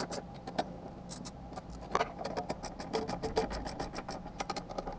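Quick runs of light clicks and scrapes from a tool working the mounting bolts of a motorcycle luggage rack, snugging them without fully tightening.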